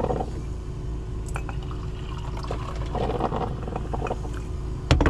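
Coffee poured from a Mr. Coffee glass carafe into a ceramic mug, with light clinks of glass and mug and a sharp clink near the end, over a steady low hum.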